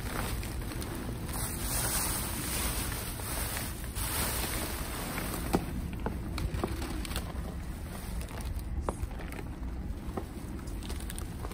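Items being shifted and handled while rummaging through a dumpster: scattered light clicks and knocks, mostly in the second half, over a steady low rumble.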